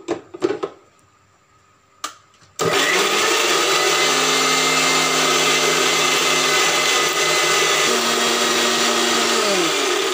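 Electric mixer grinder (mixie) blending pineapple chunks: a few knocks as the jar and lid are set in place, then the motor switches on about two and a half seconds in and runs steadily. Near the end its hum falls in pitch as it is switched off and winds down.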